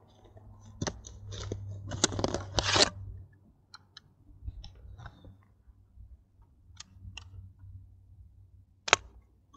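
Close handling noise from working with a hooked fish and gear: a few seconds of rustling and scraping, then scattered light clicks and one sharp click near the end.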